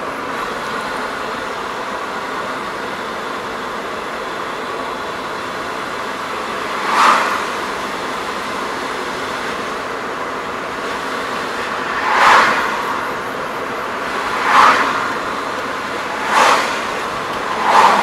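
Steady road noise inside a moving car's cabin, with five short whooshes from vehicles passing in the other lane, the first about seven seconds in and the rest close together in the second half.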